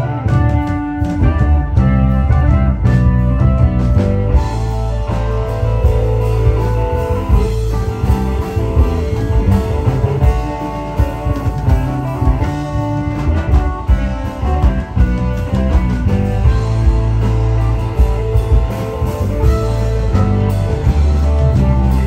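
Live rock band playing loudly through a PA: electric guitar over electric bass and drum kit, with keyboard.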